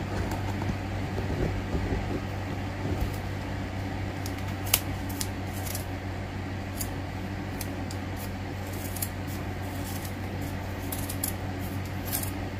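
Sharp scissors snipping through yarn wound on a plastic pom-pom maker: a scattering of short, irregular snips over a steady low hum.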